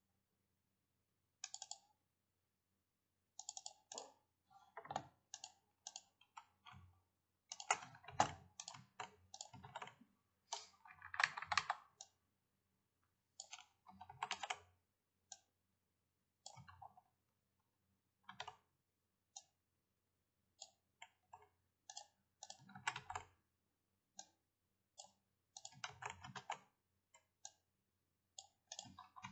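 Computer mouse and keyboard clicks, short and irregular, some coming in quick runs, as someone works at a PC.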